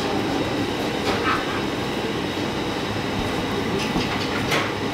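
Steady mechanical rumble of commercial kitchen machinery and ventilation, with a few light knocks and brushing sounds as dough is floured and rolled with a wooden rolling pin on a steel table.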